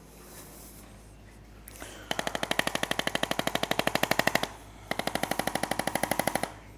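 Handheld electric percussion device tapping on the body in rapid regular pulses, about a dozen a second, in two bursts starting about two seconds in, with a short pause between them.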